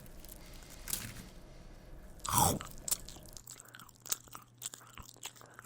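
Mouth sounds of someone biting into and chewing a soft food, with scattered crunchy clicks and one louder burst about two and a half seconds in.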